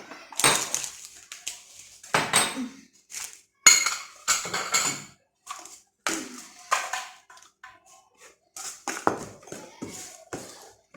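A metal spoon clinking and scraping against a mixing bowl in irregular strokes as spoonfuls of flour are added to cake batter.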